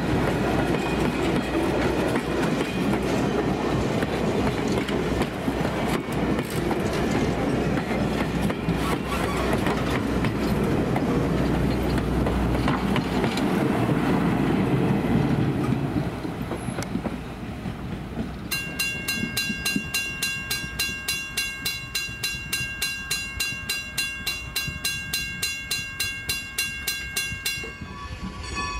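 Heritage wooden passenger coaches rolling past, a steady rumble with wheels clicking over rail joints, until the last car clears about halfway through. Then a grade-crossing bell rings steadily, about three strikes a second.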